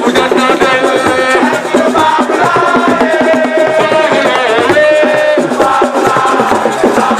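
Music: a voice singing over busy drumming.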